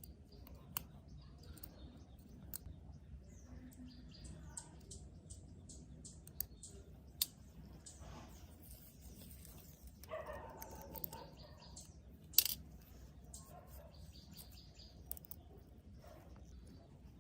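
Scattered sharp clicks and taps of small tools and parts being handled on a work surface, the loudest one about twelve seconds in.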